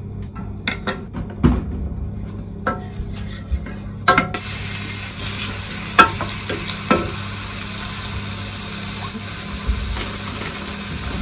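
Sliced onion hitting hot oil in a pot starts sizzling suddenly about four seconds in, then fries with a steady sizzle. A wooden spoon stirs it, with a few sharp knocks against the pot. Small clicks and knocks of handling come before the sizzle starts.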